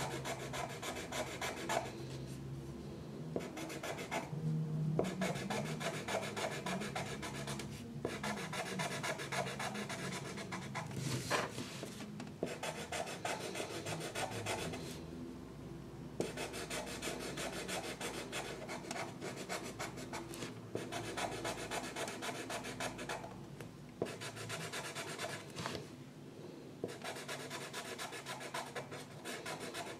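A drawing tool rubbing back and forth across paper: colouring strokes in runs of a few seconds, with short pauses between them.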